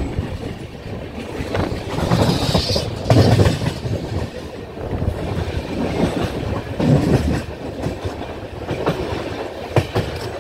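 Indian passenger train's wheels clattering on the rails, with uneven knocks and rattles.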